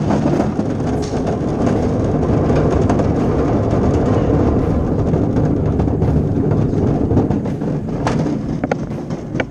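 Basket of golf balls being emptied into the hopper of a driving-range ball dispenser, the balls tumbling in as a dense, continuous rattling rumble that drops away suddenly near the end.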